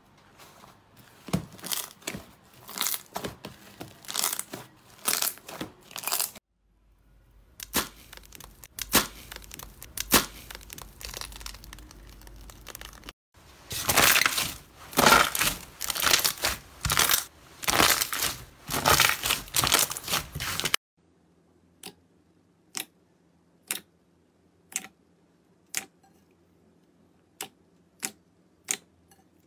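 Hands stretching, squeezing and poking slime in a run of short clips: crackling, tearing and squelching strokes, loudest and densest in the middle. Near the end, single sharp clicks come about once a second as a finger pokes clear slime in a bowl.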